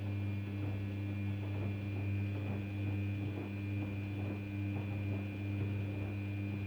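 Daewoo DWD-FT1013 washing machine running, with a steady electric hum and a high whine over it, and faint irregular clicks and swishing.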